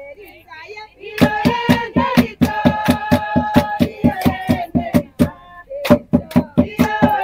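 Group singing of an Ovambo traditional song with brisk, rhythmic hand clapping, starting about a second in, with a short lull a little before the six-second mark.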